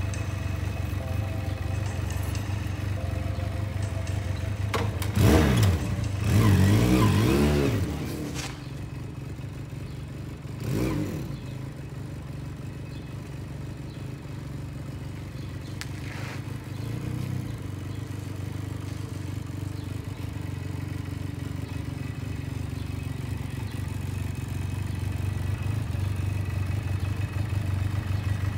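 Motorcycle engine running, revved hard with rising and falling pitch as the bike pulls away about five to eight seconds in, and revved again briefly about eleven seconds in. It then runs more quietly and grows louder again near the end as the bike comes back.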